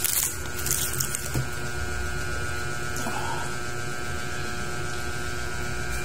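Crispy skin of a fried pork head crackling as it is torn apart by hand: a quick run of crunchy crackles in the first second and a half. A steady low hum runs underneath.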